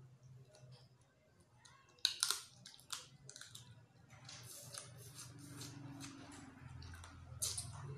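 A person eating with her fingers close to the microphone: wet lip smacks and chewing, with a cluster of sharp smacks about two seconds in. A low steady hum runs underneath.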